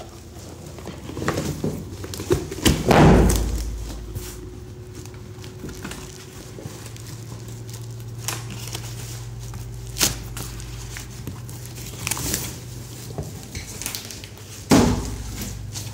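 A large cardboard shipping carton being handled and opened, with cardboard scraping, plastic wrap rustling and heavy thuds, the loudest about three seconds in and again near the end as the boxed mixer grinder inside is shifted. A steady low hum runs underneath.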